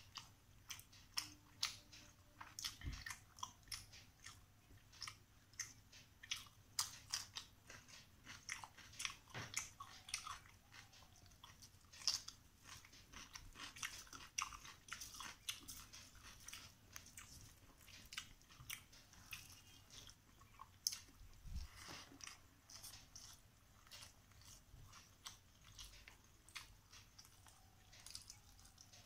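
Close-up eating sounds: chewing and lip smacking on rice and carp curry, a steady irregular run of short wet clicks.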